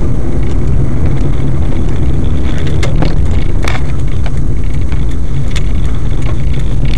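Steady low rumble of a car on the move, mostly road and engine noise, with a few faint clicks.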